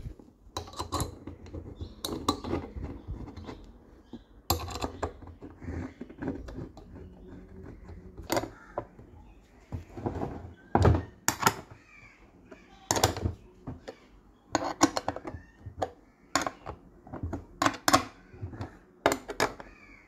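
Irregular metal clinks and knocks of a ring spanner turning the bolts on a washing machine drum's spider flange, with the spanner knocking against the flange.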